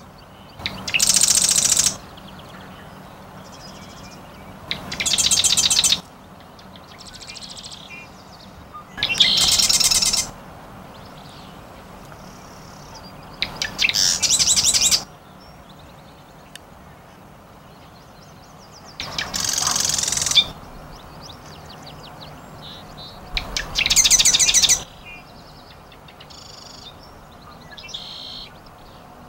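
Marsh wren singing: six short, rapid trills of about a second each, repeated every four to five seconds.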